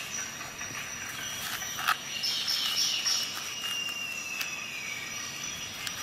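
Handling noise as a Swiss Army knife is worked into a snug synthetic belt pouch: the material rubs and squeaks, with a few sharp clicks and a louder click about two seconds in. Later comes a drawn-out squeak that slowly falls in pitch.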